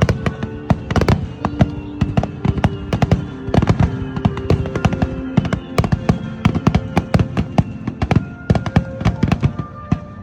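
A rapid barrage of fireworks bursts, several sharp bangs a second, over music with sustained tones. The bangs die away near the end.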